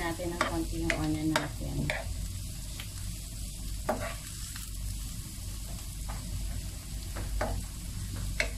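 Chopped onion and ginger sizzling as they sauté in a nonstick frying pan, while a wooden spoon stirs them, scraping and knocking against the pan in scattered strokes.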